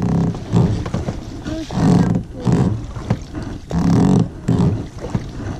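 Oarlocks of an inflatable rowing boat creaking with the oar strokes: short low groans that come back every one to two seconds, often in close pairs.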